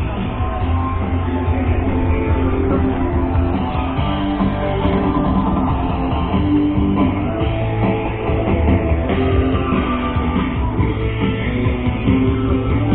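Background music led by guitar, with a steady low bass line.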